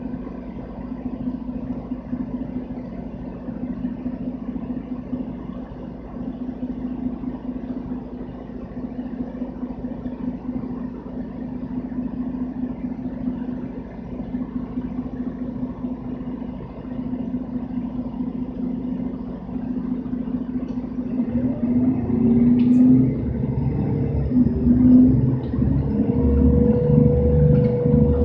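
Mercedes-Benz Citaro bus's OM457 hLA six-cylinder diesel heard from inside the rear of the bus. It hums steadily for about twenty seconds, then revs up and grows louder as the bus pulls away, with a whine that rises slowly near the end.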